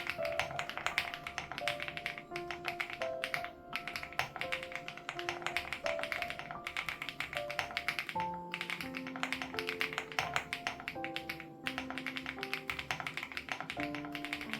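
Rapid, steady typing on a Crush80 Reboot mechanical keyboard with HMX Hyacinth switches, with short breaks about four and eight seconds in. Soft background music with held melodic notes plays under the keystrokes.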